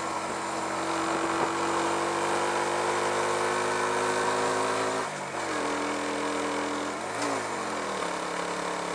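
Carbureted motorcycle engine running under way, with a steady rush of wind noise. Its pitch climbs slowly for about five seconds, then drops. About seven seconds in it rises and falls briefly, then settles lower.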